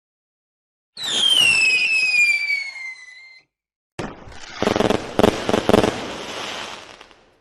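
Fireworks: a whistling firework screams with a whistle falling in pitch for about two and a half seconds. About four seconds in comes a bang, then a burst of rapid crackling pops that fades away.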